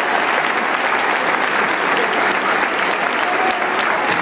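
Large audience applauding steadily, a dense patter of clapping, with a few voices calling out over it.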